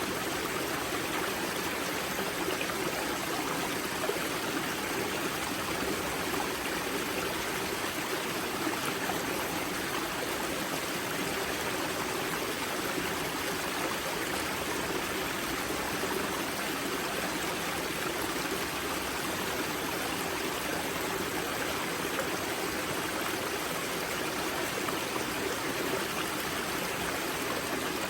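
Spring-fed mountain river water flowing and splashing over stones at its source, a steady rushing and gurgling.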